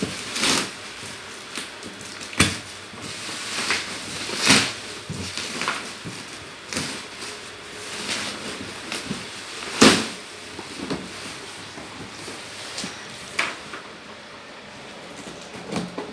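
Bubble wrap and plastic packaging crinkling and rustling as it is pulled off a cardboard box, with scattered knocks from the box being handled.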